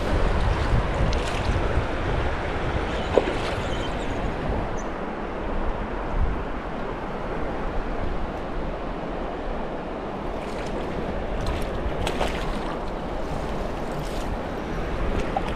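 Steady rushing of river water, with wind buffeting the microphone as a low rumble that is strongest in the first few seconds. A few faint sharp ticks come about two-thirds of the way through.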